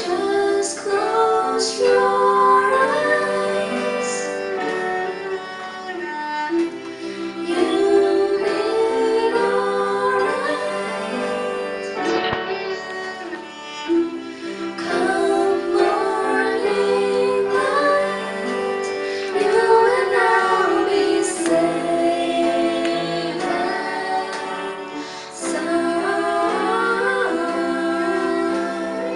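Two women singing a ballad in harmony, with live acoustic accompaniment: acoustic guitar and cello under the voices.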